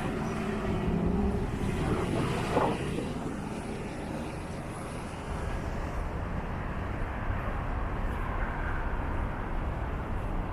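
Downtown street traffic: a vehicle engine passes in the first second or two, then a steady low traffic rumble.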